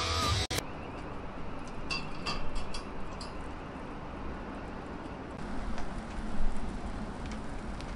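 Music stops within the first half second. Then comes the low crackle of a charcoal grill under a whole kahawai, with faint ticks from the coals and a brief louder noise about six and a half seconds in.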